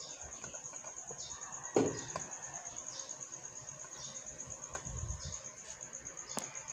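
A cricket chirping steadily in rapid, even pulses, with a few light knocks of things being handled on a table; the loudest knock comes about two seconds in.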